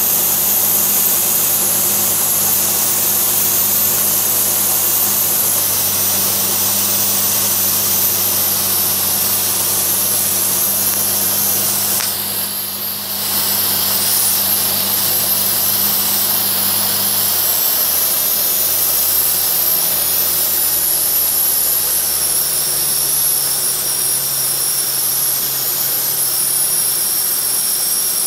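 Single-engine propeller plane's engine and propeller droning inside the cabin on a landing, with a steady rush of airflow noise. About two-thirds of the way through the engine note drops lower as power comes off for touchdown, and settles lower again near the end as the plane rolls along the runway.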